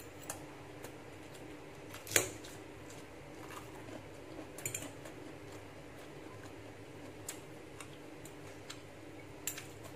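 Stainless fork and spoon clinking and scraping on a ceramic plate while spaghetti is twirled and eaten: scattered light clicks, a sharp clink about two seconds in and a small cluster near the middle. A faint steady hum runs underneath.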